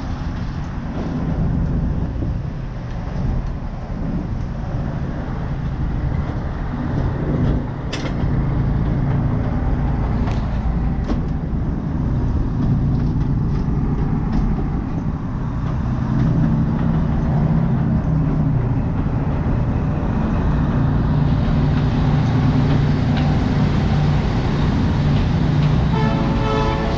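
Train running along the track, heard from inside the carriage: a steady rumble of wheels on rails with a low drone, a few sharp clicks about a third of the way through, and a brief tone near the end.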